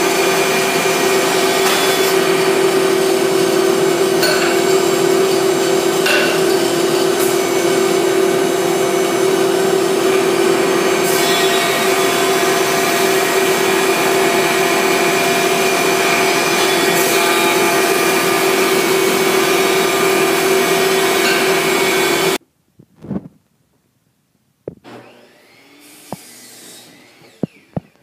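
Benchtop thickness planer running loud and steady with one constant pitch, planing hardwood boards down to the same thickness. It stops abruptly about five seconds before the end, leaving a few faint knocks and clicks.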